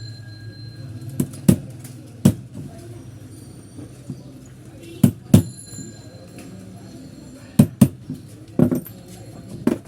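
Sharp metallic knocks and clinks on table-fan motor parts, about nine strikes with several in close pairs, over a steady low hum.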